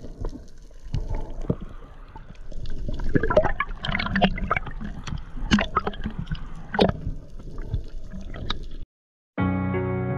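Underwater sound from a dive camera: gurgling and sloshing water with many irregular sharp clicks and pops. It cuts out near the end, and music with a steady pitched line starts after a short gap.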